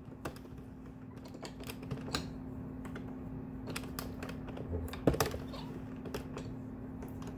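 Hand-cranked circular knitting machine being turned: its plastic needles click irregularly, several times a second, as they pass through the carriage, with one louder clack about five seconds in. A faint steady hum runs underneath.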